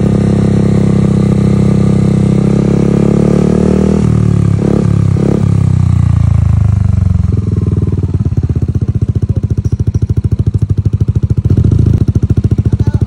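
Yamaha NMAX scooter's single-cylinder engine through a Redlak RS8 aftermarket exhaust, held at high revs for about four seconds, blipped twice, then dropping to a steady pulsing idle, with one short blip near the end.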